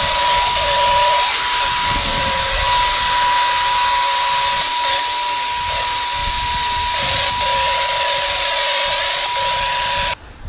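Electric paint sprayer running with a steady whine and airy hiss while spraying thinned primer onto a bookcase. It cuts off suddenly just before the end.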